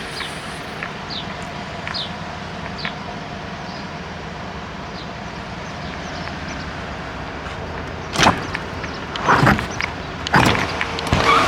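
Mercedes Sprinter van engine idling steadily, with faint short squeaks in the first few seconds. A handful of loud, sharp clunks comes in the last three seconds.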